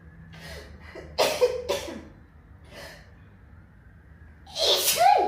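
A girl sneezing in a fit: two quick sharp bursts a little over a second in, then a loud, longer sneeze near the end, her voice rising on it.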